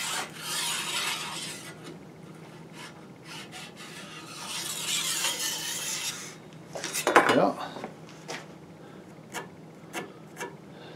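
Scratchy rubbing on wood as a pencil is drawn along the side of an octagonal rifle barrel lying on a black walnut stock blank. It comes in two stretches, with a louder scrape about seven seconds in and a few light knocks near the end.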